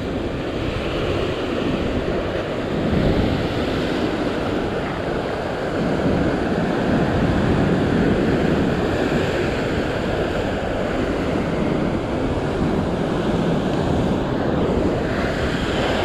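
Ocean surf breaking and washing over a rock ledge, a steady churning rush of white water, with wind buffeting the microphone.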